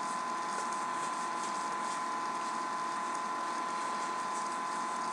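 Steady background hiss with a constant high whine, and faint soft flicks of trading cards being handled and flipped.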